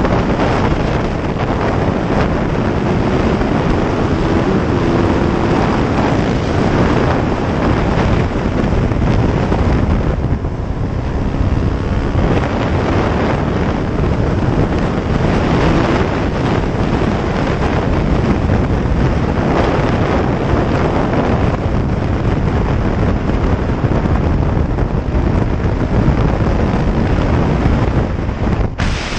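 Heavy wind buffeting on the microphone of a Yamaha YZ450F dirt bike riding at speed, with the bike's single-cylinder four-stroke engine running underneath. The rush eases briefly about ten seconds in, then builds again.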